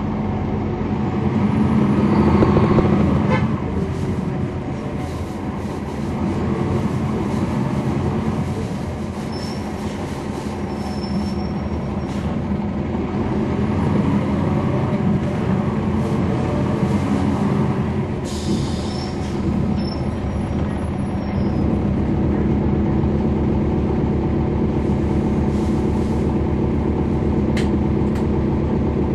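On-board sound of a NABI 416.15 transit bus with a Cummins ISL9 inline-six diesel and a ZF EcoLife automatic transmission, the engine note rising and falling as the bus moves through traffic, then holding steady over the last several seconds. A short hiss comes about eighteen seconds in.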